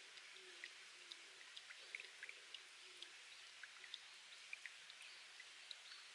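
Faint spring water trickling over rock, with many small droplets plinking at irregular moments. A low hooting bird call sounds a few times in the first half.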